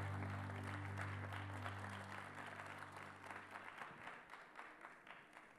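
Audience applauding and slowly dying down, while the last low note of the song's backing music fades out about four seconds in.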